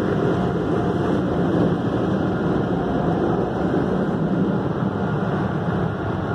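Steady rushing air noise heard from inside a car cabin as it leaves the car wash, easing slightly toward the end.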